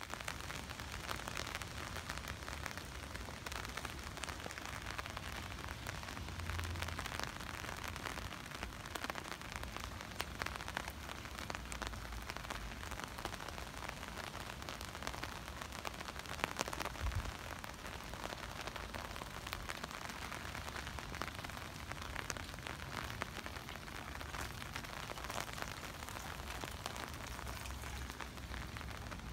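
Heavy rain falling steadily on wet pavement and parked cars: an even hiss with scattered sharp drop ticks.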